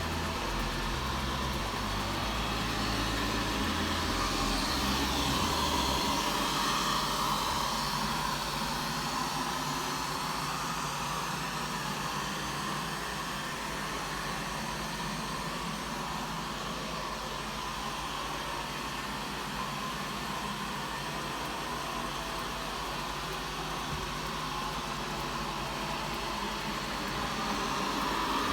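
Robot vacuum cleaner running: a steady hum of the suction fan and brushes with a whine that drifts slightly in pitch.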